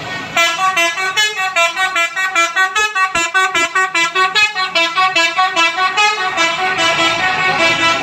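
Telolet multi-tone bus horn playing a rapid melody of short notes, about four to five a second, hopping between pitches. It starts about a third of a second in.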